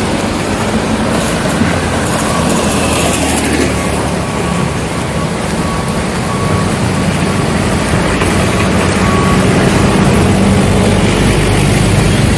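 Steady rushing of a shallow rocky stream over stones, growing louder near the end as the rapids come close.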